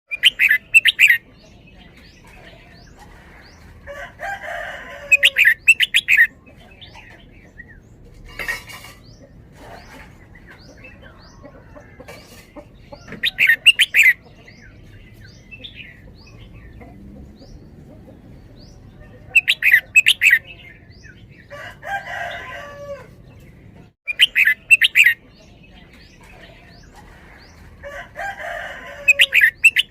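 Red-whiskered bulbul singing loud, short bursts of song every few seconds, several of them doubled, with faint chirps from other birds in between.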